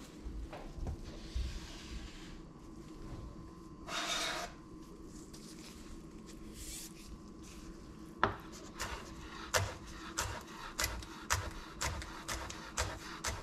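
Chef's knife chopping on a wooden cutting board from about eight seconds in: sharp knocks of the blade hitting the board, roughly two a second. Earlier, about four seconds in, there is a brief scrape.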